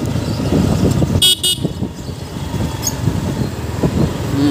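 Low, steady rumble of a Yamaha MT-15 motorcycle riding through city traffic, with a vehicle horn beeping twice in quick succession about a second in.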